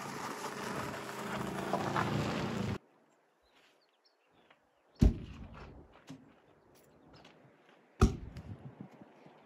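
A steady rushing noise that stops abruptly about three seconds in. Then two sharp slams of the Nissan Frontier pickup's doors being shut, about five and eight seconds in, each followed by a short rattle.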